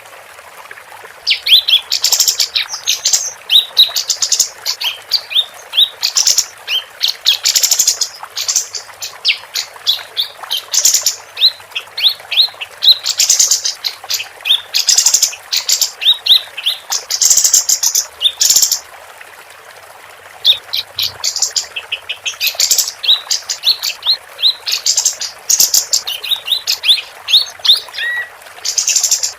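A female kapas tembak songbird singing: long runs of rapid high chirps and trills. There are short pauses about a second in and again around two-thirds of the way through.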